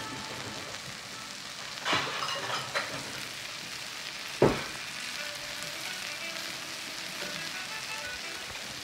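Mixed vegetables (zucchini, yellow squash, snap peas, red bell pepper) sizzling steadily in oil in a wide pan on a gas burner. A couple of brief clatters come about two seconds in, and a sharp knock about four and a half seconds in.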